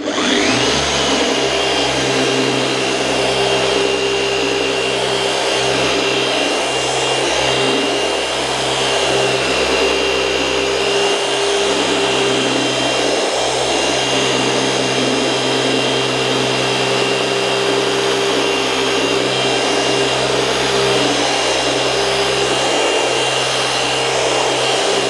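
Dynabrade DB8 gear-driven (forced-rotation) dual-action polisher spinning up and running steadily at speed setting 4 while working a heavy-cut polish on car paint. A steady motor whine with a high tone that climbs as the machine comes up to speed in the first second, then holds level.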